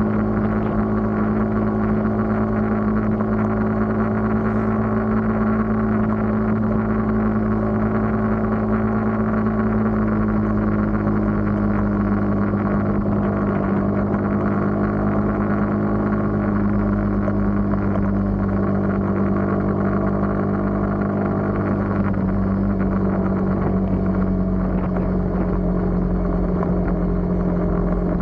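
Engine of a moving road vehicle running at a steady cruise, a constant hum over road and wind noise. Its pitch eases down slightly in the last few seconds.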